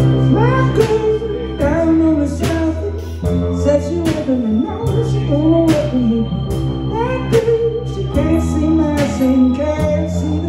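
Live guitar–organ–drums trio playing: an organ sustaining chords and a steady bass line, drums and cymbals keeping time, and a lead melody with sliding, bending notes over the top.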